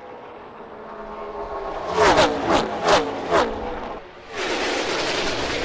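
NASCAR Gen 6 V8 stock cars at racing speed: an engine note builds, then about four cars whip past one after another, each pitch dropping as it goes by. From a little past the midpoint, a dense, steady wall of engine noise from a pack of cars.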